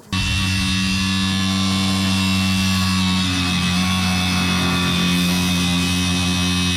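Background music: a distorted guitar chord held steadily, with a dense noisy wash over it.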